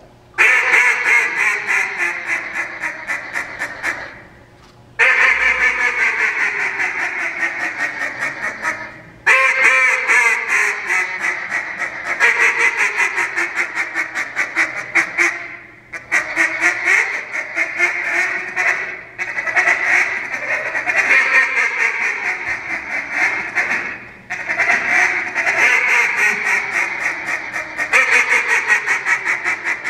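A hand-blown duck call imitating a mallard hen: loud runs of quacks and fast chatter, many notes a second, with falling sequences of quacks, broken by short pauses every few seconds.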